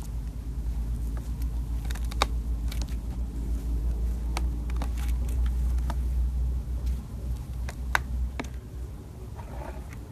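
Fingers pressing and digging into fluffy slime dotted with small beads in a glass jar: scattered sharp clicks and crackles over a low rumble of handling noise, the sharpest click about two seconds in.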